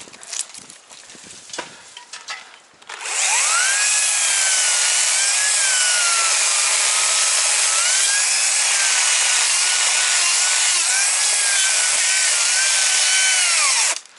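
Chainsaw cutting through a thick fallen tree trunk. It starts about three seconds in and runs loud and steady, its pitch wavering as the chain bites, then stops abruptly near the end. A few small knocks come before it.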